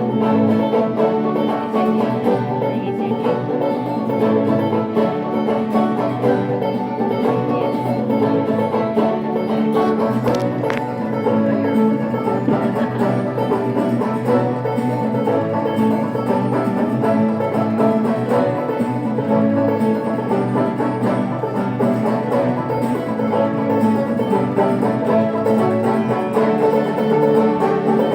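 Banjo and mandolin playing an up-tempo instrumental tune together, a steady run of plucked notes.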